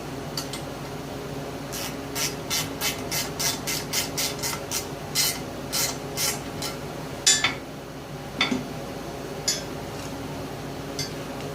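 Hand tool scraping metal in quick short strokes, about three a second, then a few slower, louder single scrapes: clearing a small chip of metal out of a hole. A steady low hum runs underneath.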